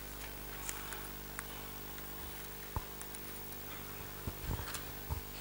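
Steady electrical hum from the church sound system, with a few faint clicks and small rustles of Bible pages being turned at the lectern.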